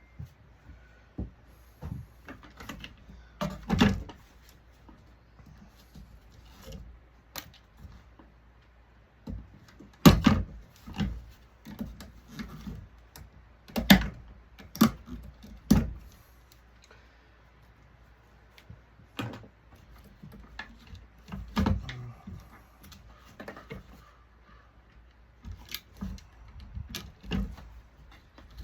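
Irregular knocks, clinks and rattles of hand tools and metal parts being handled as a high-pressure-sodium digital ballast is taken apart for scrap, with a few sharper, louder knocks among the lighter clicks.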